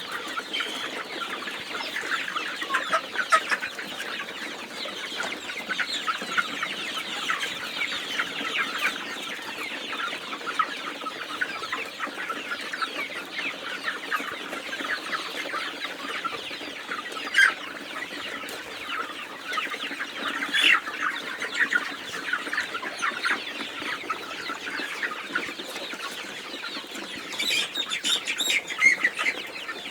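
A flock of Vanaraja chickens clucking and calling, many overlapping short calls in a continuous din, with a few louder calls standing out now and then.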